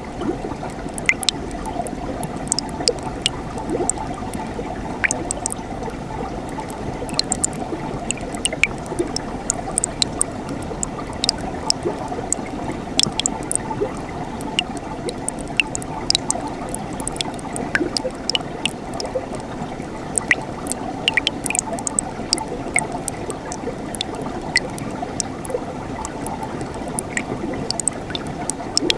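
Mountain stream flowing steadily: a continuous rush of water with many small, sharp splashes and drips scattered through it.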